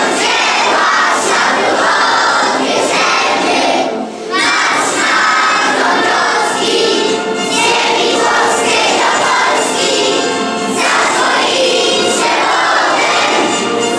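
Large children's choir singing together, with a brief pause between phrases about four seconds in.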